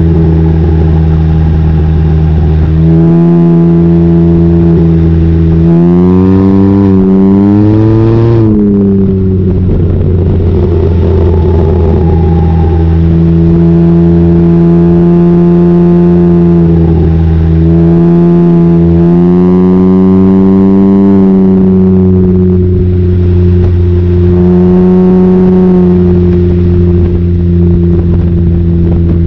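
Can-Am Ryker 900's Rotax three-cylinder engine running through an aftermarket Silber turbo exhaust with the baffle out, under way on the road. It mostly holds a steady note, its pitch climbs as it accelerates about six seconds in and again around nineteen and twenty-four seconds, and there is a rougher, noisier stretch around ten seconds.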